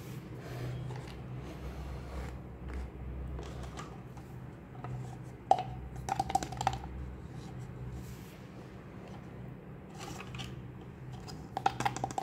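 Small plastic toy spoons clicking and tapping against the insides of hollow plastic toy pots, in a quick cluster of taps about halfway through and another near the end, over a steady low hum.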